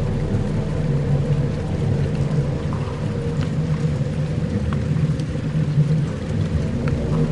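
Dark ambient soundscape drone: a dense low rumble with steady held tones, sprinkled with a few faint scattered ticks like raindrops.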